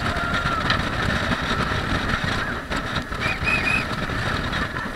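Speedboat under way at speed: its engine runs steadily under a rush of wind and water noise. A brief high-pitched squeal sounds a little over three seconds in.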